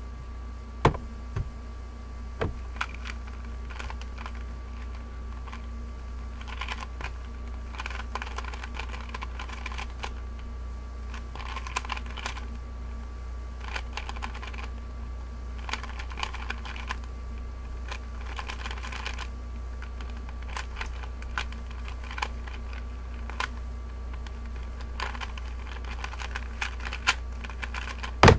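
3x3x3 Rubik's cube being turned fast in a speedsolve: bursts of rapid plastic clicking and clacking as the layers rotate, with short pauses between bursts. A loud knock near the end as the solve finishes, over a steady low hum.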